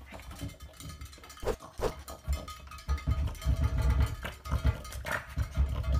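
French bulldog grunting and snuffling in short, irregular bursts as it noses a toy, louder in the second half, with two sharp clicks about a second and a half in.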